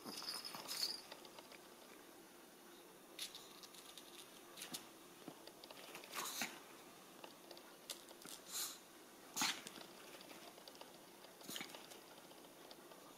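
Small dog's short, faint snuffles and scuffles on a carpet as it noses at and lunges toward a chipmunk, coming in scattered bursts a second or two apart, with a brief high squeak near the start.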